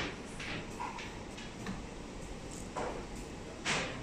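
Steady workshop machinery hum with a few short hissing bursts, the loudest near the end.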